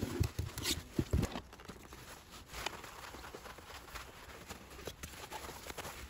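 Plastic fridge drawer being handled and wiped dry with a cloth: a few sharp knocks of plastic parts in the first second and a half, then faint rubbing and light clicks.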